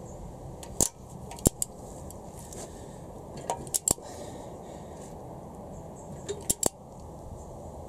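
Torque wrench and socket on an ARP cylinder-head stud nut of a Honda B18C4: several sharp metal clicks, mostly in pairs, during the final 80 ft-lb tightening pass.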